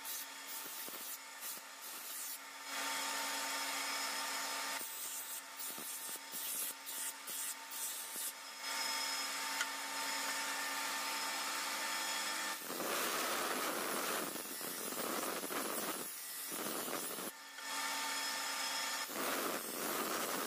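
Steel knife blade being ground on a motor-driven abrasive grinding wheel: the machine hums steadily while the blade rasps against the spinning wheel in strokes. The grinding grows louder and more continuous about two-thirds of the way through, with two short breaks as the blade is lifted off.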